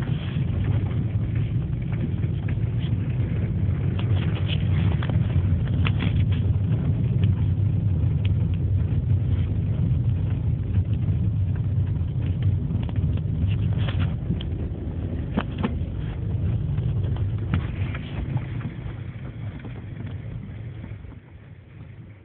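Seat Ibiza 6J reversing, with a steady low running rumble and several short, high-pitched squeaks at irregular intervals. The squeak appears only when the car reverses. The noise drops lower near the end.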